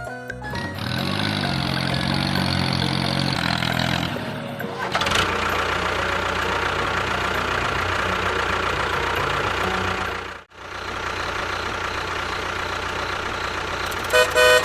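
Vehicle engine running steadily, with a brief break about ten seconds in, then short horn toots near the end.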